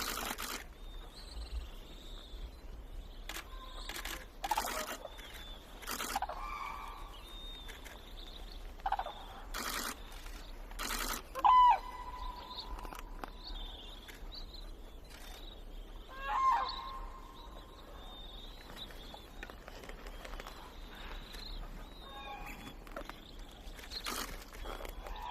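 Red-crowned cranes calling now and then, in short pitched calls, the loudest two about a third and two thirds of the way in. Fainter high chirps and a few short sharp knocks come between the calls.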